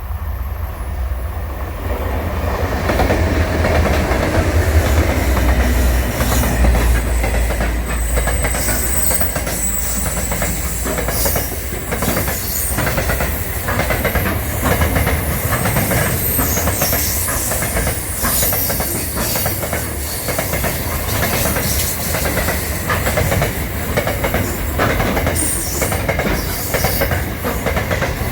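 A train passing close by. A deep rumble is strongest in the first few seconds, then the wheels click and clack over the rail joints with a steady run of knocks, and there are thin, high wheel squeals at times.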